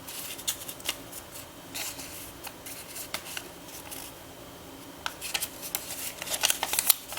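Paper and cardboard packaging being handled: rustling and light clicks, with a quicker, louder run of rustles and taps near the end.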